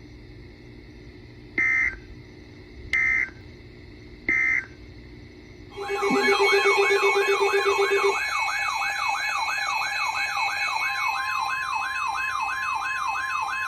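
Emergency Alert System tones: three short, evenly spaced squawks of SAME digital data (the end-of-message code closing the previous warning), then about six seconds in a loud warbling alert tone that sweeps up and down about twice a second over a steady tone.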